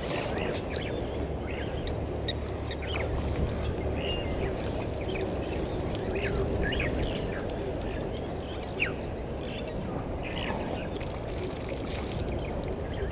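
Bush ambience at a waterhole. A short, high call repeats about every one and a half seconds, scattered short chirps from birds or frogs sound over a steady low rumble, and there is one sharp tap about nine seconds in.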